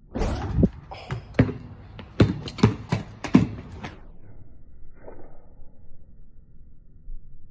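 Basketball hitting a portable backyard hoop and bouncing on a concrete slab, then dribbled: a run of sharp bounces about every half second that stop about four seconds in.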